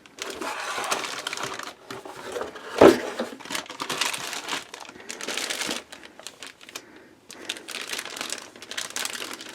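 Motherboard packaging rustling and crinkling as the board is handled and lifted out of its box, with one brief louder sound about three seconds in.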